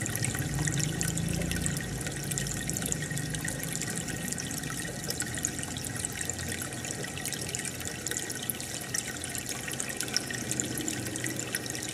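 Aquarium water bubbling and trickling steadily, with many small pops of air bubbles breaking at the surface.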